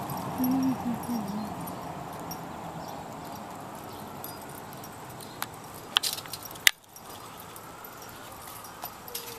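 Metal prong collar and leash hardware clinking as the dog walks, with a few sharp clinks about six seconds in, over steady outdoor street noise. A brief low tonal sound comes near the start.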